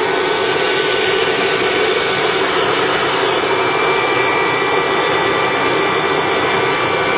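Jakadofsky Pro Turbine, the small gas turbine powering a large radio-controlled EC-135 scale model helicopter, running steadily with a loud whine over a rushing noise; a higher whistle grows stronger about halfway through.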